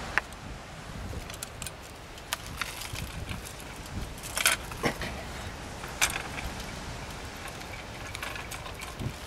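Scattered sharp clicks and clacks of metal fittings, the steel shaft and rubber bands against a homemade teak roller speargun as it is loaded by hand, loudest about four and a half and six seconds in.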